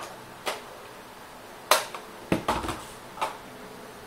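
Sharp plastic-and-metal clicks and knocks as a double magazine, two magazines clipped together, is handled and fitted to a G36C. The loudest click comes a little under two seconds in, with a duller knock and a quick run of clicks just after.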